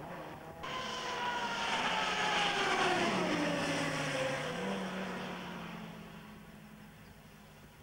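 Rally car engine at speed, starting abruptly about half a second in. Its note falls steadily in pitch as the car passes and drives away, then holds a lower steady tone and fades into the distance.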